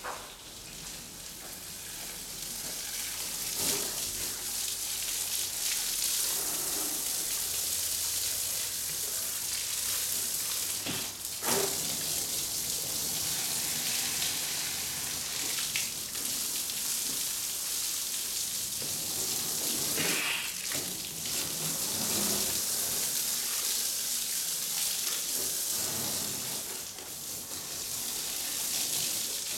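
Garden hose spraying water onto a car's windows and body panels, a steady hiss of spray splashing off the car and onto the wet pavement. A few short knocks sound along the way, the sharpest about eleven and a half seconds in.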